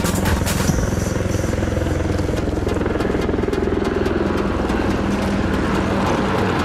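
RCAF CH-148 Cyclone military helicopter flying a display pass, with the rapid, steady beat of its rotor blades over a constant engine drone.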